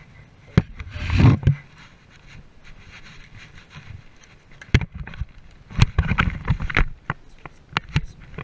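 A freshly caught tautog landing on a wooden pier deck: scattered knocks and taps on the boards, thickest in the last few seconds, with a loud rubbing, rustling noise about a second in.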